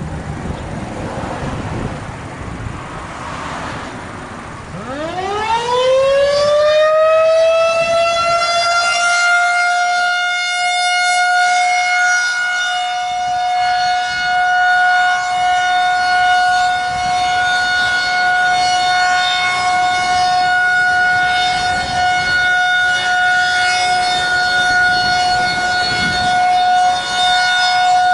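Federal Signal 2001 outdoor warning siren winding up about five seconds in, its single tone rising quickly in pitch and then holding steady, its loudness wavering slightly, for a monthly siren test. Traffic noise is heard before it starts.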